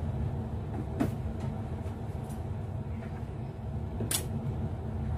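Steady low rumbling hum of a running machine or appliance, with two light clicks, one about a second in and one near four seconds.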